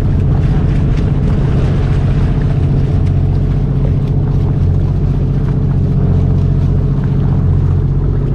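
Motorboat engine running steadily while the boat is underway: a constant low drone with no change in speed.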